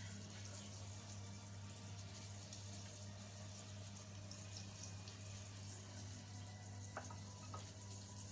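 Liver, spleen and lung frying in oil with a faint steady sizzle over a constant low hum, with two light clicks about seven seconds in.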